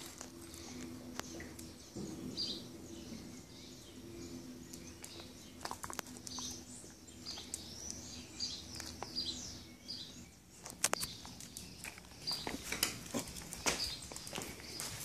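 Small birds chirping over and over in the background, short high chirps, with a low steady hum for about the first ten seconds. In the last few seconds a quick run of sharp clicks and taps comes to the fore.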